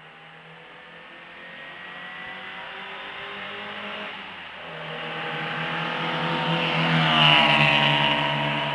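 A sports car's engine approaching and passing: it builds steadily louder for about seven seconds, then its pitch drops as it goes by.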